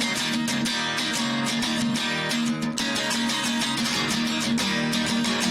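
Background music led by guitar, with a steady rhythm of plucked and strummed notes.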